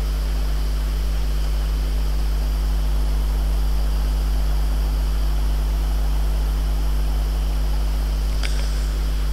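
Steady low electrical hum with a constant hiss in the recording, unchanging throughout.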